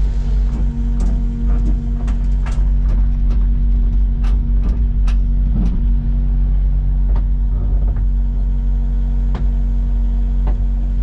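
Kubota KX excavator's diesel engine running at a steady pitch, with a string of sharp clicks and knocks from the machine as it works.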